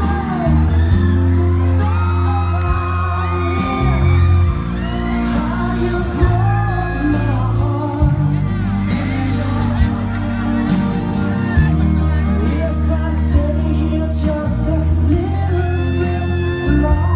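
Pop song playing loudly, a singing voice over a heavy bass line that changes note every second or two: the backing track for a lip sync performance.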